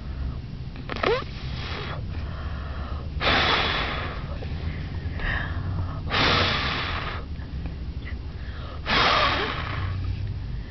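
A baby blowing out breathy, huffing puffs of air three times, about three seconds apart, with a short rising squeak about a second in. A steady low hum runs underneath.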